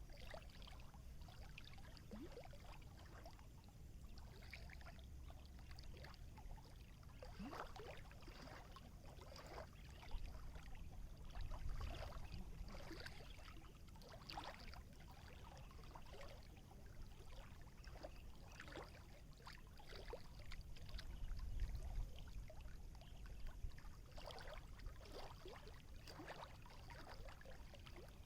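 Quiet water lapping and splashing in small, irregular surges over a low, steady rumble.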